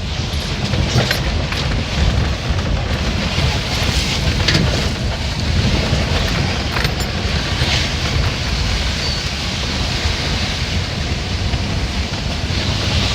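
A vehicle driving over a slushy, snow-covered driveway: a steady low engine and road rumble with tyres hissing through slush, and a few scattered cracks and knocks.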